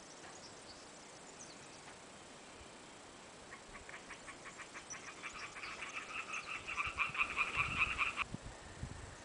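A frog croaking: a fast series of pulsed croaks, several a second, that starts about a third of the way in, grows louder and cuts off abruptly near the end.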